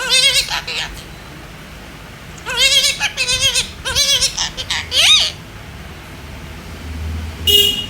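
A parrot giving a string of short, quavering, wavering-pitched calls, about five in all, the last sliding up and down in pitch, then a brief harsh squawk near the end.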